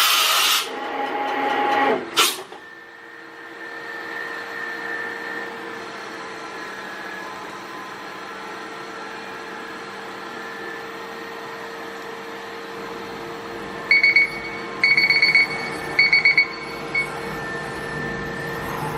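FANUC Robodrill α-T14iD drill-tap machining center running: a loud hiss at the start and a rising whir that ends in a sharp clack about two seconds in, then a steady hum with a constant tone. Near the end come three or four groups of short high electronic beeps.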